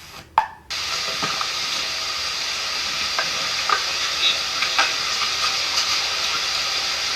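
A sharp click, then a steady, even hiss of water rushing over a small river falls, with a few faint ticks.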